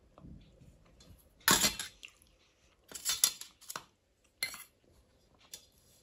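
Stainless steel bowl and spoon clinking and clattering against a stainless steel plate: a loud clatter about one and a half seconds in, a cluster of clinks around three seconds, and a sharp single clink near four and a half seconds.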